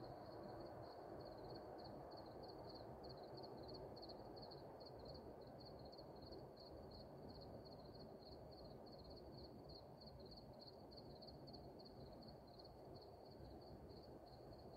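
Faint, steady chirping from an insect, high-pitched and pulsing evenly about four times a second, over a soft low background rumble.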